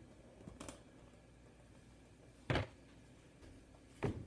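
Three separate knocks and thumps of kitchen handling. The loudest, a heavier thud, comes about two and a half seconds in, with a lighter knock near the start and another near the end.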